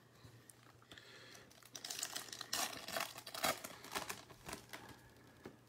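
Foil wrapper of a trading-card pack being torn open and crinkled by hand: a run of crackling rustles that starts about a second and a half in, is busiest in the middle, and dies away near the end.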